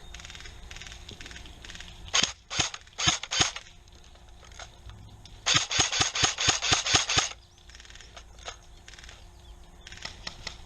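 An airsoft electric rifle (AEG) firing sharp shots: a short group of about five, then a rapid string of about a dozen at roughly seven a second.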